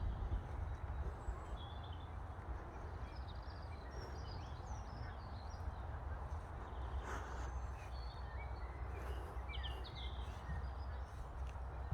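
Small birds chirping and twittering in short scattered calls, over a low steady rumble.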